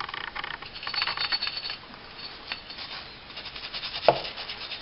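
Cleaning brush scrubbing a disassembled 9mm pistol's parts, bursts of quick scratchy strokes, with a single sharp knock about four seconds in.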